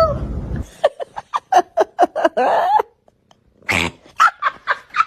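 A cat giving a rapid run of short, clipped calls, about four or five a second, then a pause of about a second, then another run of calls.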